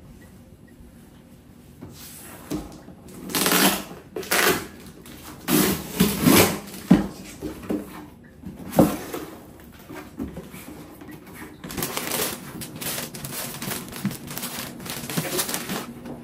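Rustling and crinkling of a parcel's packaging being opened and handled. It comes in irregular short bursts at first, then turns busier and nearly continuous near the end.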